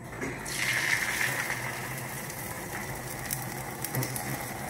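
Beaten egg poured into hot oil in a frying pan, sizzling as it hits: the sizzle starts about half a second in, strongest at first, then settles into steady frying. A light knock near the end.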